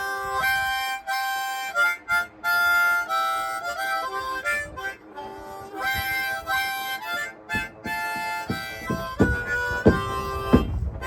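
Harmonica music, a melody and chords in short held notes, with low thumps coming in during the second half.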